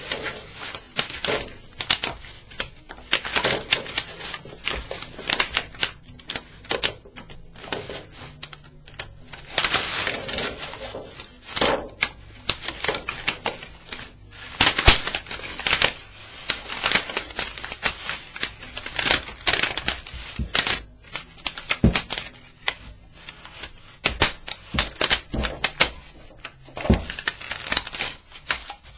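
A flesh hoop being worked by hand into the edge of a Yellowstone banjo head around the rim. It makes irregular scraping and rustling, with many sharp clicks.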